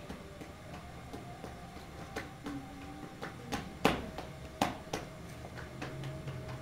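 Hands patting and slapping a round of flatbread dough as it is stretched and pressed onto a cloth-covered baking cushion: irregular soft taps, the two loudest about four and four and a half seconds in. A faint steady hum runs underneath.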